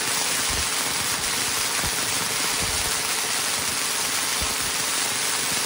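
Angle grinder running steadily at speed, whirling a length of string from its spindle. The string's tip is going faster than sound, giving a continuous rapid crackle of tiny whip-like cracks over the motor's steady noise.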